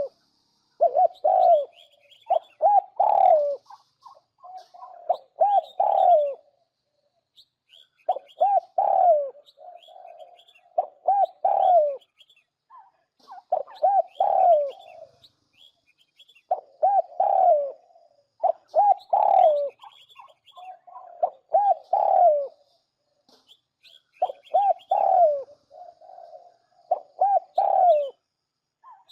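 Spotted dove cooing: a lure recording of phrases of several low coos ending on a falling note, repeated every two to three seconds. Faint short chirps sound higher up between and alongside the coos.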